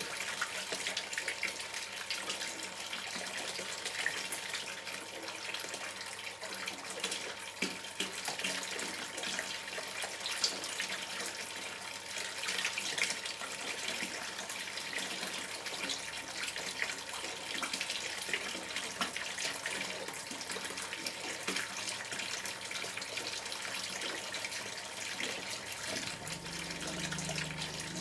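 River water running and gurgling: a steady, even wash of small splashes and bubbling spatters. A low hum comes in near the end.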